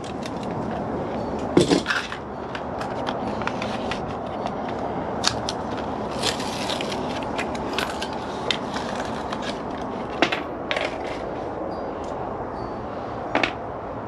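Small-parts handling: scattered clicks and light rustles as a package of replacement door-latch cable clips is opened and the small metal and plastic pieces are handled, over a steady background hiss. A sharper clatter comes about one and a half seconds in.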